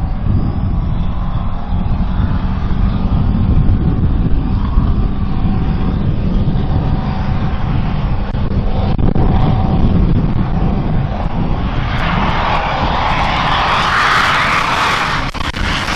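Diesel drag-racing truck's engine running with a loud, deep, steady rumble. About twelve seconds in, a loud rushing hiss builds over it.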